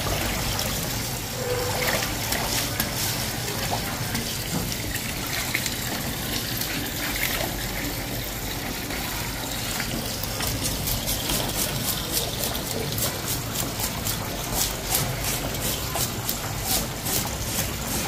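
Steady running water, and from about halfway through a quick run of scraping strokes, about four a second, as a fish scaler is dragged against the scales of a crimson snapper.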